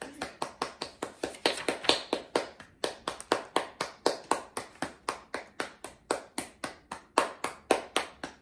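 A child clapping his hands rapidly and steadily, about five claps a second.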